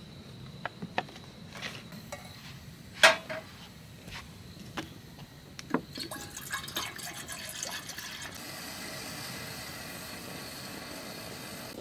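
A few clicks and knocks, the sharpest about three seconds in, then from about six seconds in water poured from a plastic bottle into a metal camping kettle on a portable gas stove. After that comes the steady hiss of the lit stove burner.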